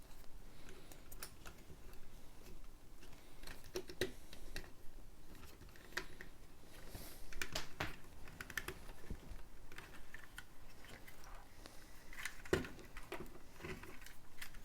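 Small irregular clicks and taps of Lego plastic pieces and an LED light-kit cable being handled and pressed into place.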